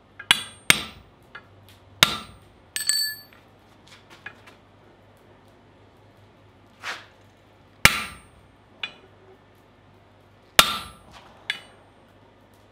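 Hammer blows on hot steel at the anvil: a handful of sharp metallic strikes at uneven intervals, several close together at first, then single blows a few seconds apart. One strike near the start rings on briefly with a clear bell-like tone.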